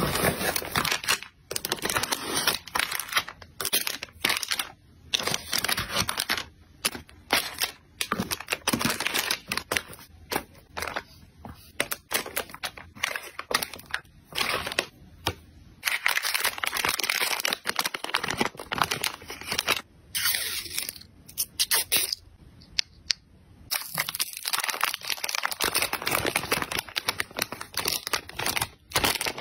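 Plastic packaging crinkling and rustling close up under the hands, in irregular crackly spurts with short pauses. It starts with air-cushion wrap and ends with a clear plastic sleeve.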